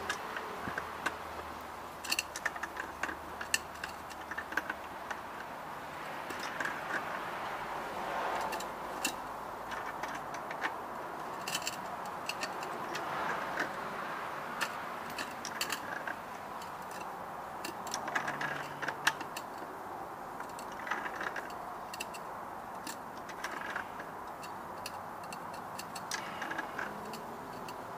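Scattered small clicks and clinks of a brass hose fitting and a plastic water-filter housing being handled and screwed together by hand, over steady background noise.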